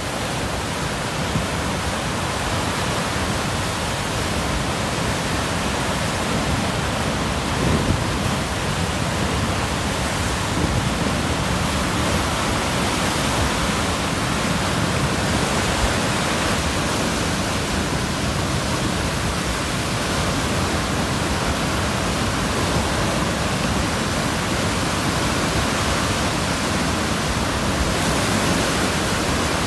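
High water on the Potomac River pouring over Dam 5 and churning in the whitewater below: a steady, even rush of falling water.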